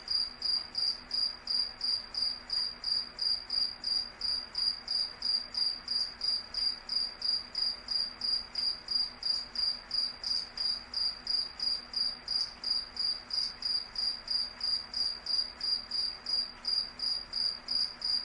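A cricket chirping steadily, short high-pitched chirps repeating evenly about three times a second.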